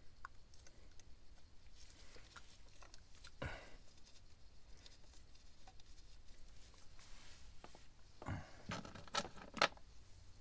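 Hands in nitrile gloves fitting the cover and its small screws on a Yanmar 3YM30's raw-water pump: faint scrapes and small metal clicks, a knock about three and a half seconds in, and a quick run of sharp clicks near the end.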